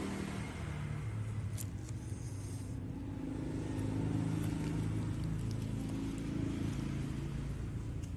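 A low, steady motor rumble whose pitch drifts slowly up and down, with a few faint clicks.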